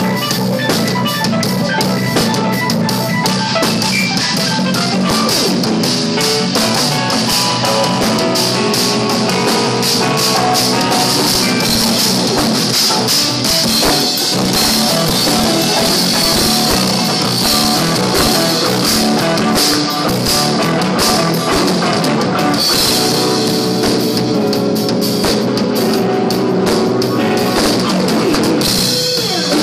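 Live jazz-rock fusion band playing, led by a busy drum kit with cymbals and bass drum over guitar and bass.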